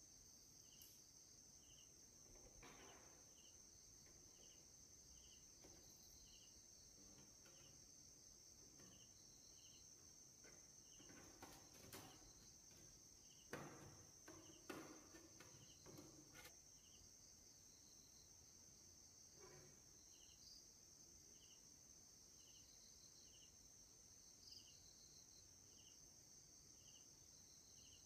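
Near silence: faint insect chirping, short chirps in pairs repeating every second and a half or so, over a steady faint high hum. A few soft clicks and knocks come from the plastic TV speaker housing being handled about 11 to 17 seconds in.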